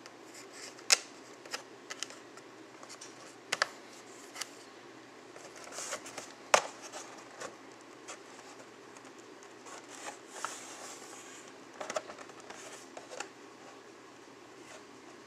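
Clear plastic blister packs and cardboard backing cards of carded action figures being handled: scattered sharp plastic clicks and taps, the loudest about a second in and about halfway through, with a brief crinkling rustle.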